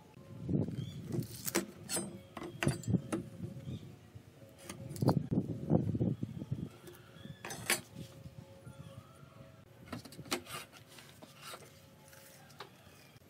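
Irregular knocks, clicks and clatter of wooden pieces and hand tools being handled, with two spells of heavier knocking, one just after the start and one about five seconds in.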